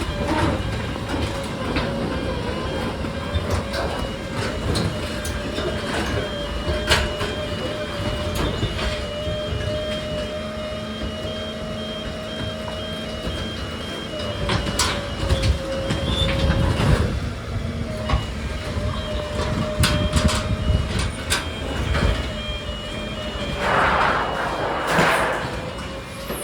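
Dumpster grinder machine running with a steady, slightly wavering whine, scattered knocks and clatters, and louder rumbling surges about halfway through and near the end.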